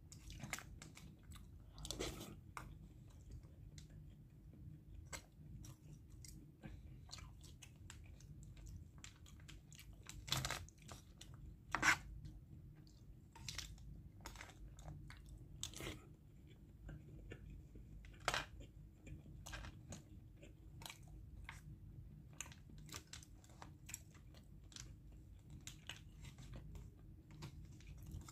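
Someone eating: chewing and crunching, with frequent small clicks and scrapes of cutlery on a foil takeaway tray, and a few louder clinks about 2, 10, 12 and 18 seconds in.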